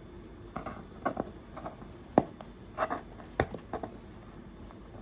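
Hands picking at and prying open a memory card's glued packaging: scattered short scratches and rustles with a few sharp clicks.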